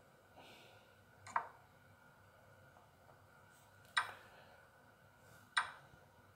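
Three sharp clicks, a second or two apart, each with a short decay: a chess app's piece-move sound effects as the game review steps forward through castling and two knight-and-pawn captures.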